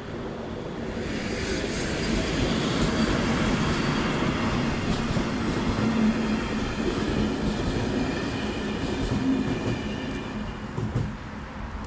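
Passenger train passing over a level crossing: a steady rumble of wheels on rail with repeated clacking, and a thin high wheel squeal in the second half. It builds about a second in and falls away as the last coach clears, about eleven seconds in.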